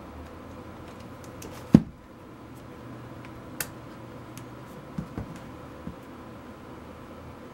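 Handling noise from a DSLR camera body and a small precision screwdriver on a tabletop: scattered light clicks and taps, with one sharp knock a couple of seconds in and a few softer clicks after it.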